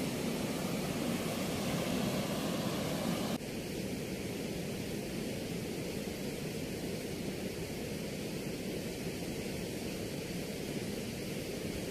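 Steady rushing of water pouring through a weir's sluice gates, an even hiss with no distinct tones. About three and a half seconds in it drops abruptly to a slightly quieter level and runs on steadily.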